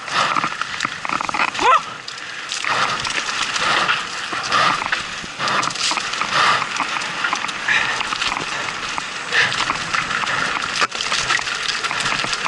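Canyon Strive enduro mountain bike descending a rocky dirt trail at speed: tyres crunching over loose stones and the bike rattling over bumps, with wind rush on the action camera's microphone.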